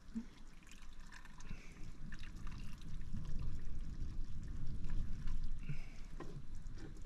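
Water pouring and dripping back into the pot as cooked noodles are lifted out of the boiling water, growing louder about halfway through, with a few light knocks of the utensil.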